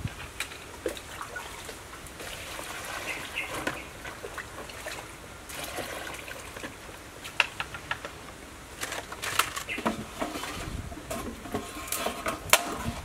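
Water poured from a plastic jug into a bowl to soak dried mushrooms, amid clicks, knocks and rustles of plastic and steel bowls being handled.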